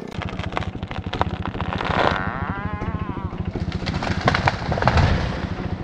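Husqvarna 460 two-stroke chainsaw idling with a rapid, even putter.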